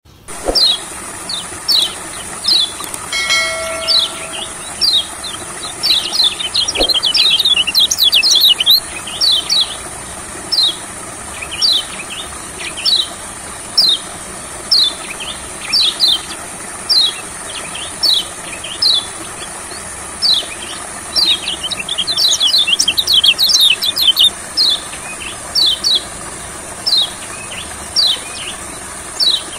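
Kecial kuning, a yellow white-eye, calling with sharp high chirps about once a second, breaking twice into fast chattering runs, over a steady high hiss.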